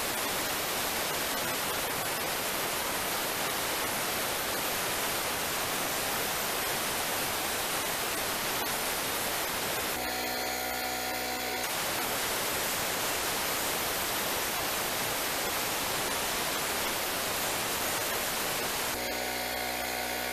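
Compressed air from a pancake air compressor hissing out of an air blow gun, blowing dust out of a portable electric heater, in two long blasts. The air stops briefly about ten seconds in and again near the end, and the compressor's steady motor hum is heard in those gaps.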